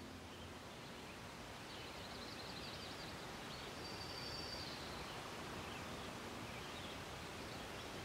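Faint outdoor nature ambience: a steady soft hiss with distant birds, a few quick high trills about two seconds in, a thin whistled note about four seconds in, and scattered faint chirps after.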